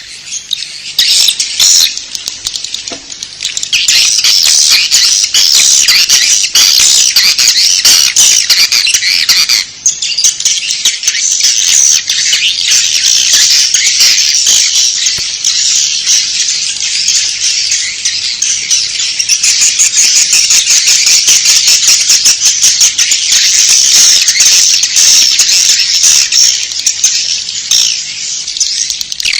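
Recorded swiftlets' dense, continuous twittering chatter: the 'inap' roosting call that is played in swiftlet houses to draw the birds in to roost. It dips briefly about ten seconds in.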